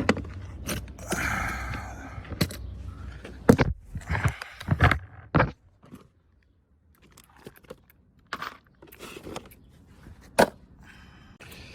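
Scattered knocks, clicks and rustling of someone moving about and handling things, with a near-silent pause about six seconds in.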